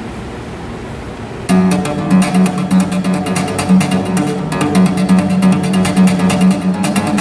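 Nylon-string classical guitar played solo: a soft, fading passage, then about a second and a half in a sudden loud run of rapid repeated plucked notes over a steady low note.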